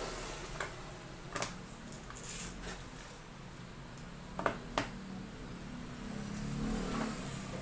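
Small laptop parts being handled: a few sharp, light clicks, one alone and then two close together, over a steady background hum.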